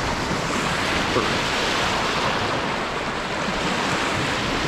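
Small saltwater waves washing steadily onto the shore, with wind.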